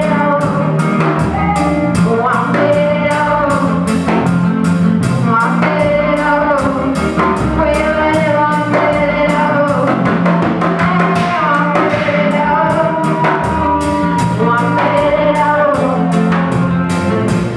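Church worship band playing with singing: voices over drums and guitar with a steady beat.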